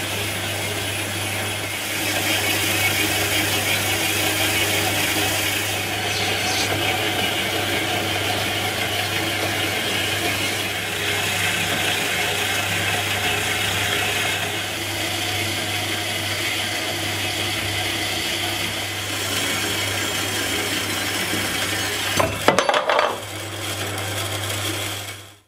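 Metal-cutting band saw (Huvema 712) running and sawing through a thick round metal bar under flowing coolant: a steady motor hum under the rasp of the blade in the cut. A few brief louder knocks come near the end, then the sound cuts off suddenly.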